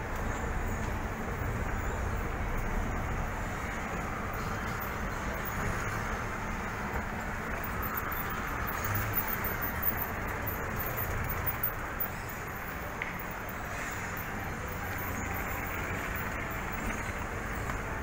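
Escalator running: a steady mechanical noise from the moving steps and drive, heard while riding on it, a little quieter from about twelve seconds in.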